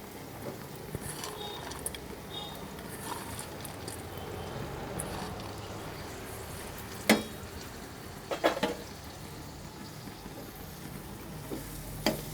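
Spiced onion-tomato masala frying gently in oil in a pan while a spoon stirs it. Sharp knocks of the spoon on the pan come about 7 s in, twice around 8.5 s, and once near the end.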